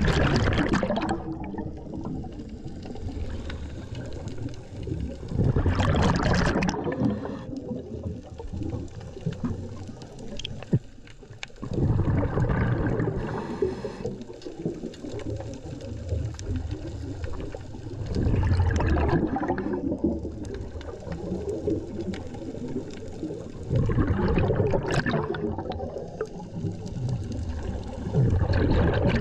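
Scuba diver breathing through a regulator underwater: each exhalation releases a loud gurgling rush of bubbles, about every six seconds, with a quieter underwater rumble between breaths.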